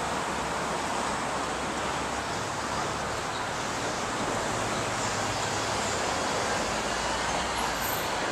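Steady city street noise: a constant hiss of traffic with no distinct events.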